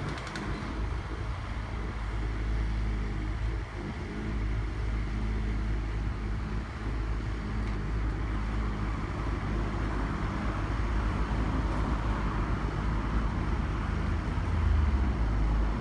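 Mini excavator's diesel engine running steadily while the hydraulics work the boom, arm and bucket; the engine gets louder briefly near the end.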